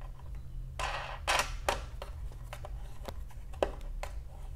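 Light, irregular metallic clicks and scrapes of a wing nut being turned by hand on a bolt of a metal sluice box, with two louder scraping rasps about a second in; the bolt spins with the nut instead of catching.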